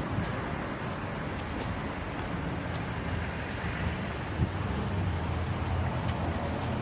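Steady rumble of distant road traffic, with one sharp click about four and a half seconds in.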